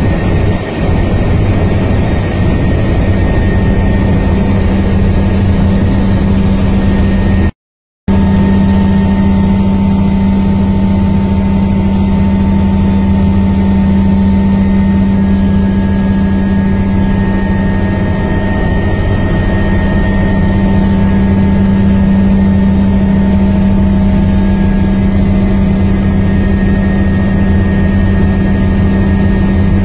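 Helicopter engine and rotor noise heard from inside the cabin in flight: a loud, steady drone with a constant low hum and a fainter high whine. It cuts out completely for about half a second a quarter of the way in, then resumes unchanged.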